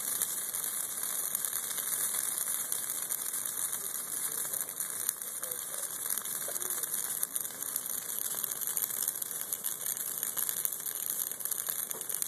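Dry Christmas tree burning fiercely in an open fire: a steady hiss of flames with dense, continuous crackling of burning needles and branches.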